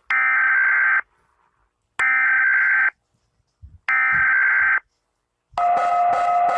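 Emergency Alert System header tones: three harsh, buzzing data bursts, each about a second long and a second apart. About five and a half seconds in, a steady alarm tone starts, pulsing about three times a second.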